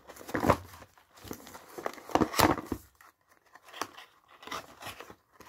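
Cardboard and plastic packaging being handled as a small white cardboard box is slid out and opened: a string of short rustles, scrapes and crinkles, with a brief lull about three seconds in.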